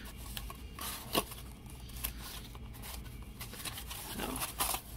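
Corrugated cardboard flaps of a building-block box being folded and pushed into place by hand: scraping and rustling of cardboard, with a sharp snap about a second in.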